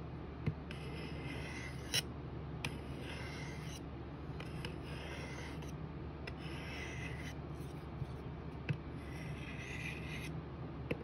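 Steel folding-knife blade drawn in repeated light-pressure strokes across a Work Sharp sharpener: a soft rasping scrape about seven times, each pass about a second long, with small clicks between passes.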